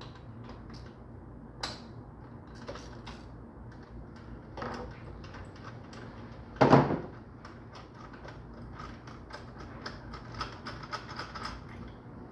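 Hand tools and engine parts clicking and clattering as an ignition coil is removed from the engine to get at the spark plug. One louder knock comes about halfway through, and a run of quick light clicks fills the second half.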